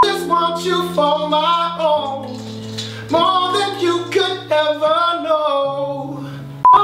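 Male voices singing a Christmas song, accompanied by acoustic guitar and sustained keyboard chords. A short, loud beep tone cuts in at the start and again near the end.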